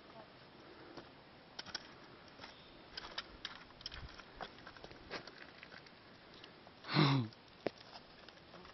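Scattered light clicks and scrapes of climbers and their gear moving over rock, with one short voice sound, falling in pitch, about seven seconds in.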